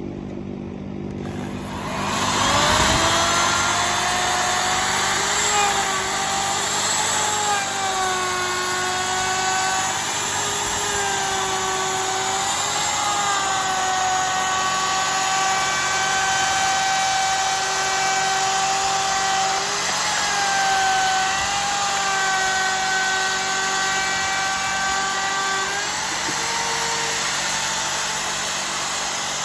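Handheld router spinning up about two seconds in and running at high speed, its whine dipping and recovering slightly as it cuts. It shuts off a few seconds before the end.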